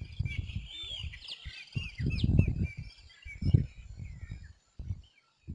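Small birds chirping, many short rising and falling notes overlapping through the first three seconds or so. Dull low thumps come and go underneath, the loudest about two and a half and three and a half seconds in.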